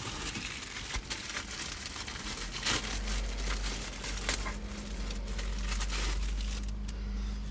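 Crinkling and rustling with scattered clicks as the old cabin air filter is handled and pulled from its housing behind the glove box. A low steady hum comes in about three seconds in.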